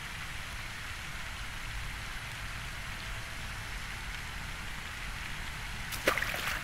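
Fountain water splashing in a steady hiss, with one short sharp sound near the end.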